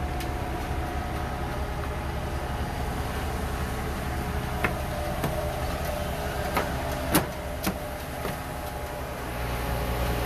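Diesel engines of a concrete mixer truck and a skid-steer loader running steadily, with a few sharp knocks in the middle.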